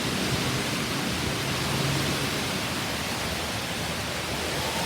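Heavy rain pouring down in a strong wind storm: a steady, even hiss of rain.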